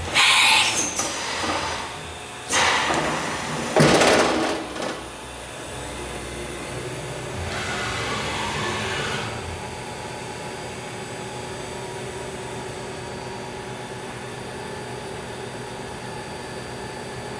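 STYLE BT-2000 CNC machining centre running. There are three loud mechanical bursts in the first five seconds and a hiss about eight seconds in, then a steady hum.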